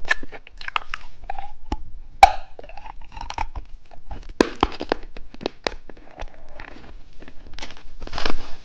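Close-miked crunching and chewing of candy, with irregular sharp cracks as it is bitten and broken up.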